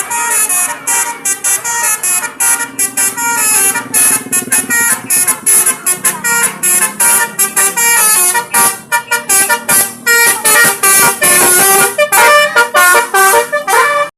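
Basuri multi-tone bus horn ("telolet") playing a melody as a fast run of short, chord-like honks, with a few longer held notes near the end.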